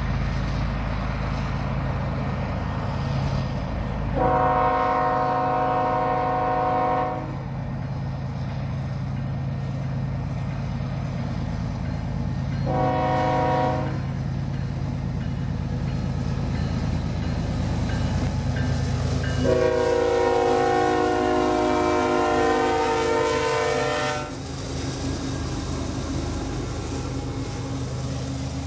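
Diesel locomotives leading a Union Pacific double-stack intermodal train sound their air horn three times, each blast a chord of several notes: a long blast, a short one, then a long one. Under the horn is a steady low engine rumble. After the last blast the sound settles into the rolling noise of the container cars passing.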